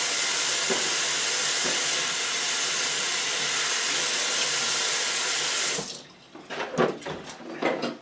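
Kitchen tap running in a steady rush while hands are washed under it; the water is shut off suddenly about six seconds in. A few knocks and clatters follow as a plastic dish pan is lifted out of the sink.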